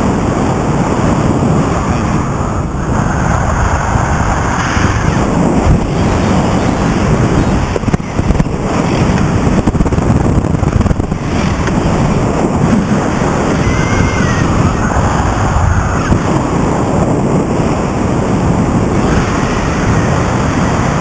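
Steady wind rushing over the microphone in flight under a powered paraglider wing.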